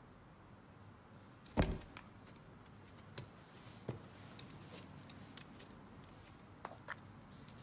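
Quiet room with scattered footsteps and small knocks as someone walks across the floor; a single heavy thump about one and a half seconds in is the loudest sound.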